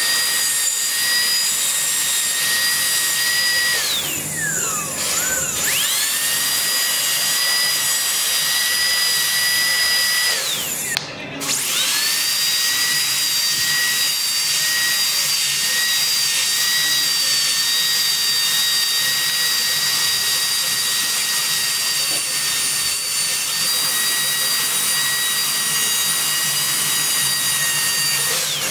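High-speed dental drill with a diamond bur, running with a steady high-pitched whine as it trims an excess fiber post and then cuts the tooth down for a crown. It winds down and spins back up twice, about four and about eleven seconds in.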